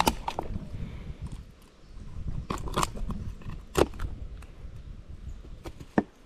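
Kitchen knife cutting raw duck meat on a wooden cutting board, with about six sharp knocks of the blade hitting the board, over a low steady rumble.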